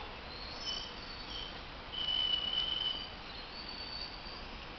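Birds calling outdoors: scattered short, high, thin notes at several pitches, the longest and loudest held for about a second starting about two seconds in, over a faint steady background hiss.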